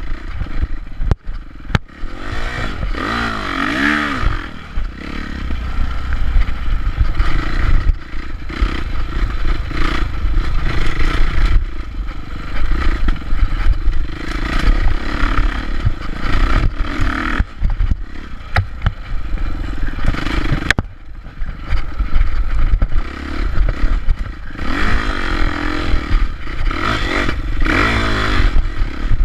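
Dirt bike engine revving up and down as the bike is ridden over rough woodland trail, with repeated clattering knocks from the bike bouncing over the ground and brush scraping past the bike and rider.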